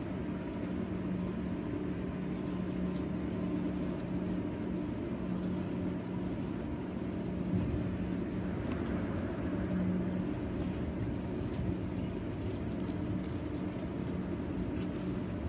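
A steady low engine drone, its hum swelling and easing slightly.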